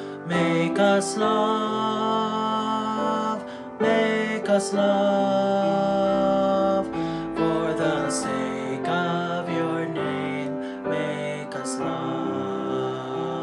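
Slow worship song: a sung melody over instrumental accompaniment, with held notes that change every second or two.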